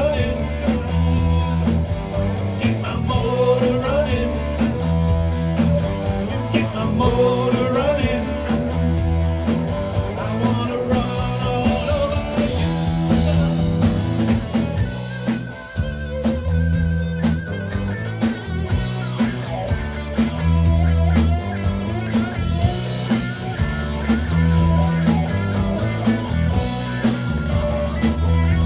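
Rock band playing: electric guitar over a steady bass line and drums.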